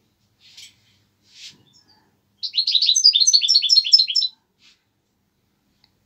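A small songbird singing: two faint short calls, then a loud, fast trill of rapidly repeated falling chirps lasting about two seconds.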